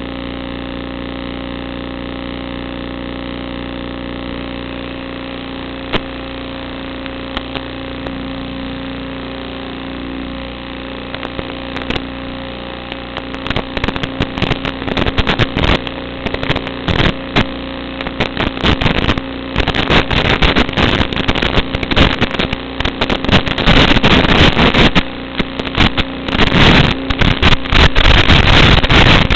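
Small FPV quadcopter's brushless motors and propellers running with a steady hum at first. From about halfway it grows louder and choppy, with crackling and buffeting on the onboard microphone as the drone flies.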